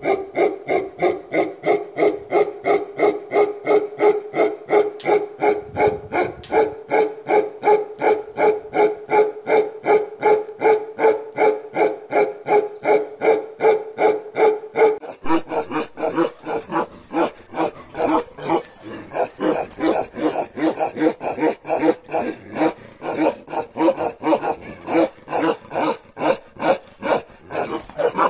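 Bakarwal dogs barking: a deep, steady run of barks, about three a second. About halfway through, the barks become less even in pitch and spacing.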